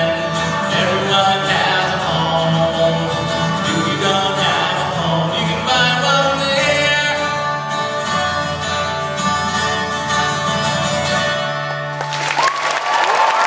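Live band with guitar playing the closing bars of a song, then audience applause breaking out about twelve seconds in as the music ends.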